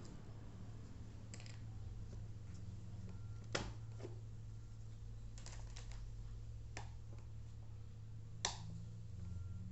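Scattered light clicks and knocks of plastic fan parts being handled while an electric fan is taken apart for repair, about seven at irregular intervals, the sharpest about three and a half seconds in and near the end. A steady low hum runs underneath.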